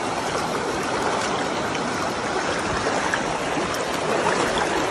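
Shallow rocky creek rushing steadily over stones.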